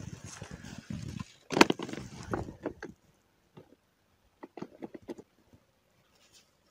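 Close handling noises as a jig and rod tip are worked in the hands: a run of rustles and clicks, loudest about a second and a half in, then a few scattered faint clicks.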